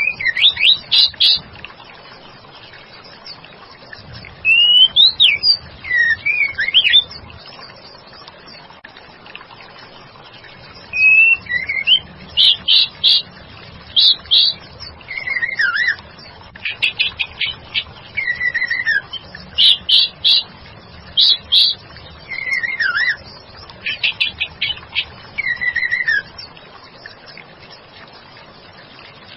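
White-rumped shama (murai batu) calls, a female's calling used as a lure for a male. Groups of sharp chirps and falling whistled notes come in bursts separated by pauses of a few seconds, the longest run in the middle, over a steady faint hiss.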